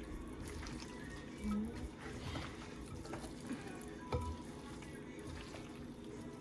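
Hands squeezing and rubbing seasoning into raw chicken legs: soft wet squishing with a few light knocks, one a little louder about four seconds in.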